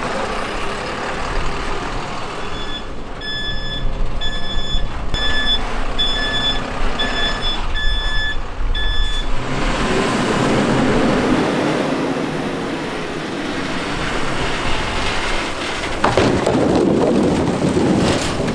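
A heavy vehicle's engine running while its reversing alarm beeps at a steady pace, about three beeps every two seconds for around six seconds. Louder engine and work noise follows, with a sharp knock near the end.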